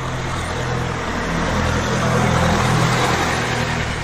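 A motor vehicle's engine running close by, its noise swelling to a peak a little after halfway and then easing off.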